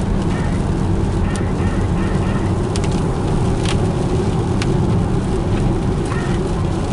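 A steady, loud low rumble with short honking calls several times through it and a few sharp clicks.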